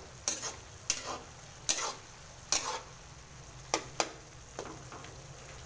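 A utensil stirring pork mince in tomato sauce in a wok: about eight sharp scrapes and clinks against the pan, unevenly spaced, over a faint sizzle from the cooking meat.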